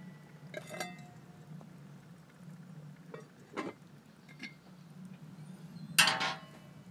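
Cast iron Dutch oven lid being lifted with a metal lid-lifter hook and set onto the pot: a few separate metal clanks and clinks with short ringing, the loudest near the end.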